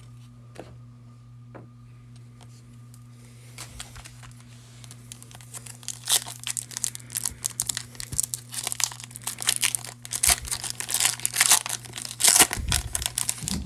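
Foil wrapper of a football trading-card pack being torn open and crinkled by hand, crackling in irregular bursts that start about three and a half seconds in and grow louder toward the end.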